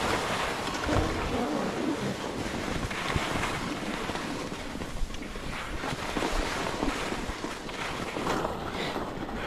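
Skis hissing and scraping over tracked, chopped-up snow during a downhill run, with a few brief louder scrapes. Wind rushes over the head-mounted camera's microphone.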